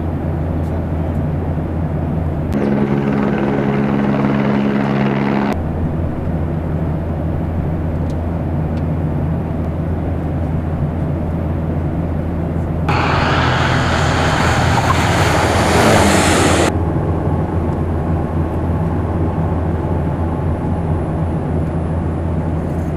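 Twin-turboprop airliner's engines and propellers heard from inside the cockpit during landing, a steady low drone throughout. A steady humming tone joins in for about three seconds a few seconds in. On the landing roll, a loud rushing surge lasts about four seconds past the middle, then drops back to the drone.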